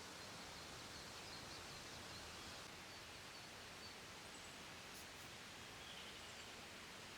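Faint outdoor ambience: a steady, even hiss with a few faint, short, high chirps scattered through it.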